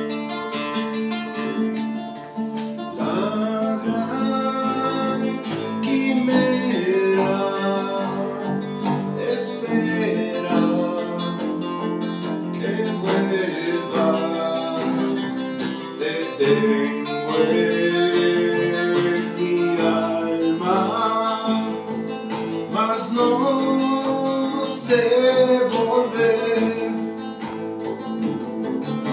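Acoustic band playing a song: a nylon-string guitar and a second acoustic guitar are plucked and strummed, and a man sings the melody over them from about three seconds in.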